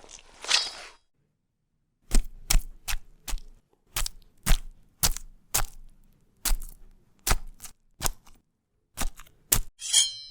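Sword-fight sound effects: a short noisy burst, then about fifteen sharp, dry hits at uneven spacing, then near the end a bright metallic clang with a ringing tone, like a blade striking metal.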